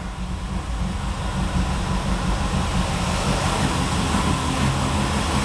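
1957 Chevrolet's engine idling steadily.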